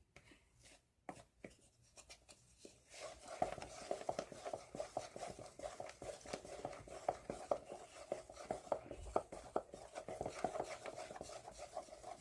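A utensil stirring and scraping sticky glue-and-shaving-cream slime around a bowl: a few faint taps at first, then rapid, continuous clicking and scraping from about three seconds in.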